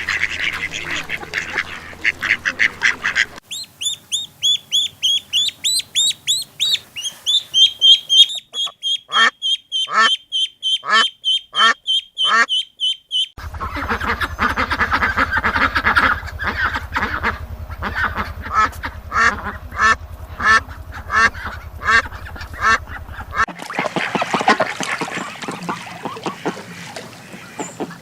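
A run of different animal calls cut together. It starts with rapid chattering, then series of high repeated chirps and sharply falling whistled calls. A long stretch of fast, rhythmic calls over a low hum follows, and the end is a noisier passage of calls.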